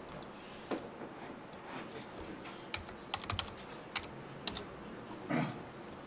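Computer keyboard being typed on, keys tapped in short irregular runs as a case number is entered into a search field.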